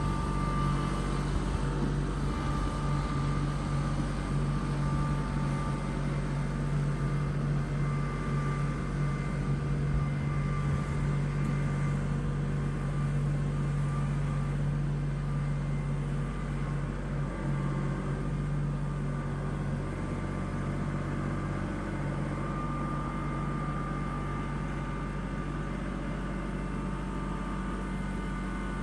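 Vehicle engine running steadily at a constant speed, a low, even hum that eases off slightly in the second half.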